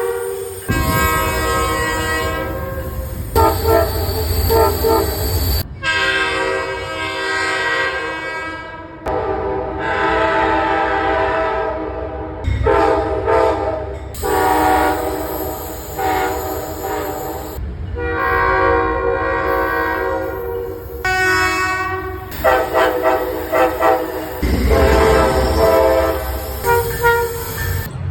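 Locomotive air horns sounding a string of chord blasts, some held and some short and quick, in segments that cut abruptly from one horn to the next; under several of them runs the low rumble of a train.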